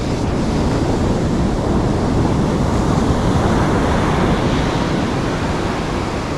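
Ocean surf breaking on a beach, a steady rushing noise, with wind on the microphone.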